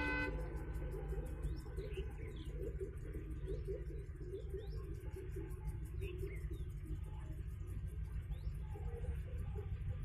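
Distant Alco WDM-3A diesel locomotive approaching, its engine a steady low rumble, with birds chirping several times over it. The tail of a multi-tone locomotive horn cuts off right at the start.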